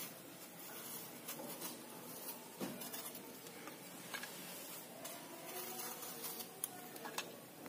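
Faint, scattered small clicks and scrapes of a kitchen knife peeling the skin off apples by hand.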